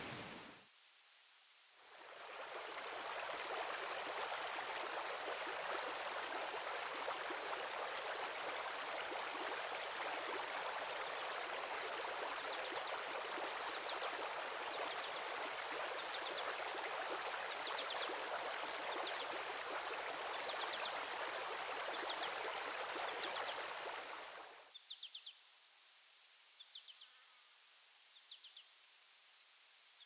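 Stream running over rocks, a steady rushing wash, with short high chirps about once a second joining about ten seconds in. About 24 seconds in the water sound stops abruptly, leaving the chirps over a faint background hush.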